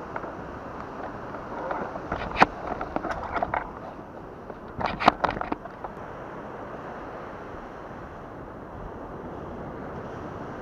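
Steady sound of surf and wind, with a cluster of sharp clicks and knocks about two to three and a half seconds in and another about five seconds in, from fishing gear being handled in the crate on a loaded fishing kayak.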